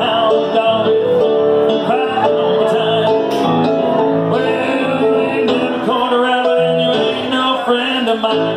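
Live piano playing with a man singing along through a microphone, a lively up-tempo song.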